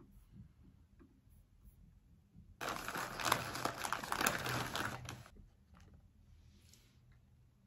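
Plastic snack bag of cookies crinkling as it is handled, starting suddenly a little over two and a half seconds in and lasting about two and a half seconds.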